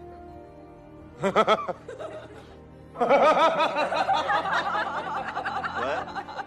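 A man's short snicker about a second in, then sustained laughing from about three seconds in, over quiet background music.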